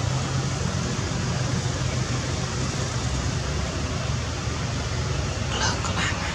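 Steady rushing outdoor background noise with a low hum underneath, and two brief high-pitched sounds about half a second apart near the end.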